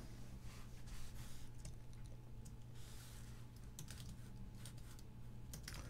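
Faint typing on a computer keyboard: scattered keystroke clicks as terminal commands are entered, over a low steady hum.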